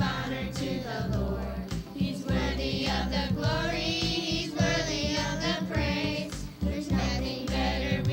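A song playing: voices singing over a backing track with a steady, repeating bass beat.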